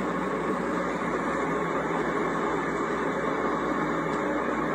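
Steady road and engine noise of a car driving, an even rumble with no distinct events.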